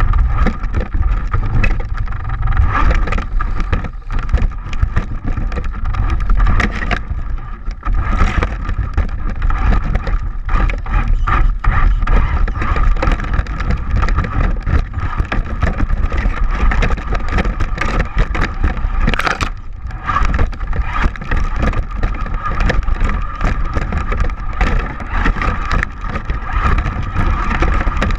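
Traxxas Slash 4x4 radio-controlled truck driving over rough ground: a steady motor-and-gear whine over a constant heavy rumble, with scattered knocks from bumps.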